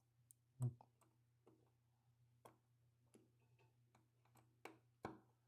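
Faint, irregular small clicks and taps, about seven of them, from hands working on a camera's flip-screen hinge. The loudest come about half a second in and near the end.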